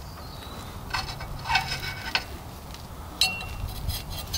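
Light metallic clinks with brief ringing as the old downstream oxygen sensor is unscrewed and lifted out of the exhaust pipe: a cluster about a second in, then one sharper clink near the end.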